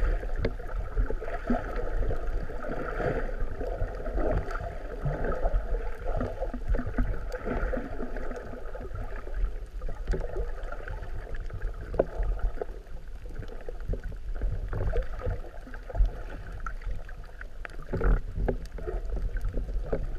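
Muffled sloshing and rushing of water heard through an underwater camera housing, with a low rumble and a few short knocks.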